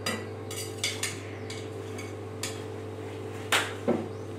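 Metal ladle clinking against a ceramic bowl and plate as pasta is spooned out: several separate clinks, the loudest about three and a half seconds in, over a steady low hum.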